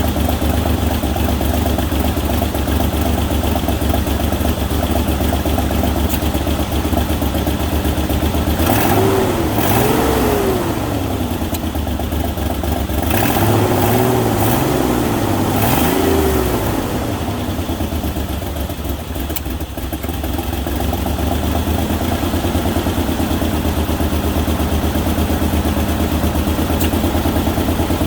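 Ford Ranger engine idling just after being started, with the throttle blipped twice about nine seconds in and a few more times around fourteen to sixteen seconds before it settles back to idle. The owner thinks it sounds like it has an exhaust leak.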